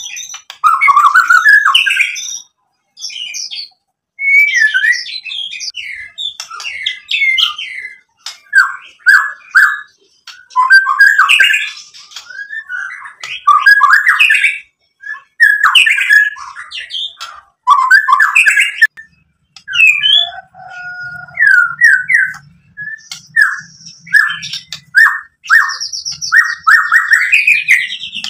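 White-rumped shama (murai batu) singing loudly and vigorously: varied phrases of whistles and chattering notes, each a second or two long with short breaks between them, and a fast run of repeated notes near the end.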